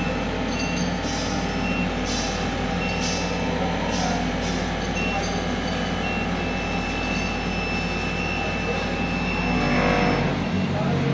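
A machine running steadily: a low hum under a noisy whir, with thin high whistling tones that come and go. About ten seconds in the sound shifts and a different, slightly higher hum takes over.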